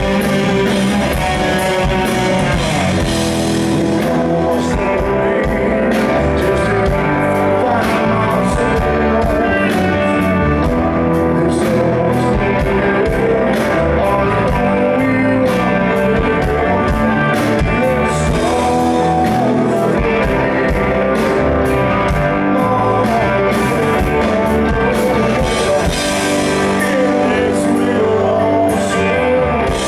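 Live rock band playing a slow ballad, with a man singing over keyboard, electric guitar and drums, heard through a camera microphone at the front of the stage.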